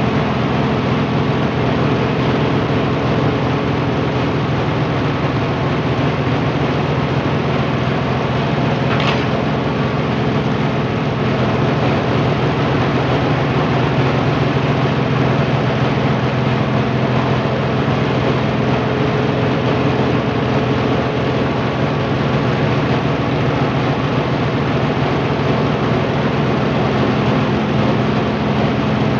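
Small electric rice-milling (hulling and whitening) machine running steadily under load as paddy goes through it: a constant loud hum with a dense rushing hiss of grain and husk. A short higher scrape cuts in briefly about nine seconds in.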